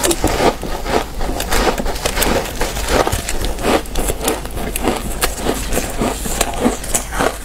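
Chunks of shaved ice crunching and squeaking in quick, dense crackles as they are chewed and squeezed in a gloved hand.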